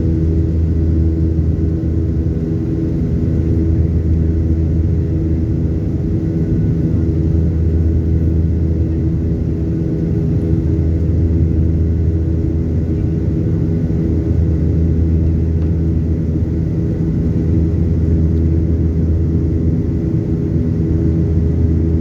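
Steady drone of a Boeing 737-800's CFM56-7B turbofan engines and airflow, heard from inside the passenger cabin: a low rumble with a few constant hums and a faint high whine, unchanging throughout.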